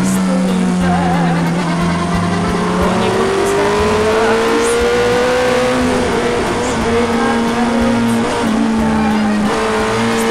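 Sport motorcycle engine running hard at high revs, heard from on board with wind rushing past. Its pitch climbs over a few seconds in the middle as the bike accelerates, then holds steady.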